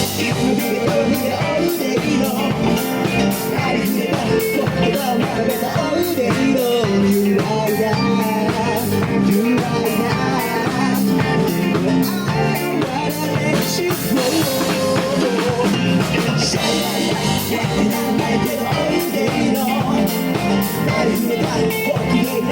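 Live rock band playing a song: drum kit keeping a steady beat under electric guitar and a melody line.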